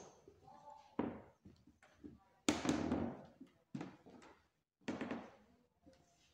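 Several dull knocks and thuds, each trailing off in a room's echo, the loudest about two and a half seconds in.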